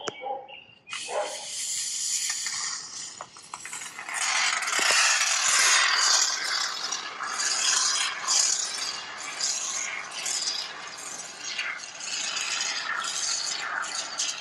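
Expanding polyurethane spray foam hissing and sputtering out of an aerosol can through a thin straw. It starts about a second in and comes in spurts with short breaks.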